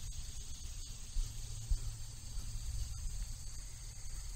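Steady outdoor field ambience: an even, high insect chorus over a low rumble.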